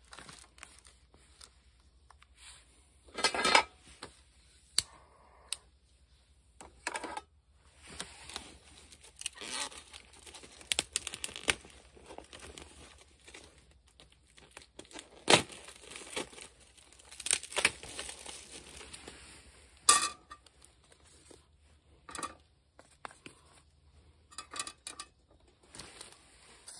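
Plastic food packaging (film wrapping around a plastic tray) being torn open and crinkled by hand. The rustling is irregular, with a few sharp, louder crackles or knocks among it.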